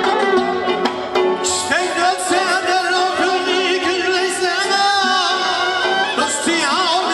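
Live folk music: a male voice enters about a second and a half in, singing with a wavering vibrato over a bowed fiddle played upright, a long-necked plucked lute and a hand-struck frame drum.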